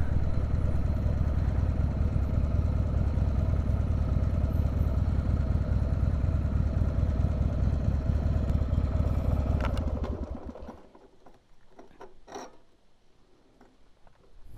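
Harley-Davidson Sportster's V-twin engine running steadily at low speed, then shut off about ten seconds in. A few faint knocks follow.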